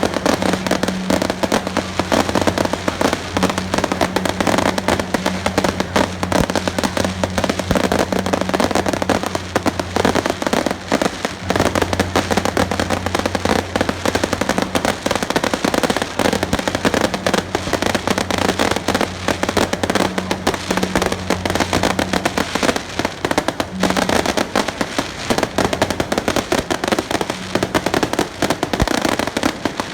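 Strings of firecrackers going off without pause, a dense rapid crackle of bangs, over a low steady hum.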